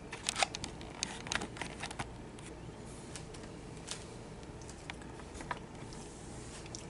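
Light clicks and taps of a silicone spatula working icing over a cake top, a quick cluster in the first two seconds and then a few scattered ones, over a low steady room hum.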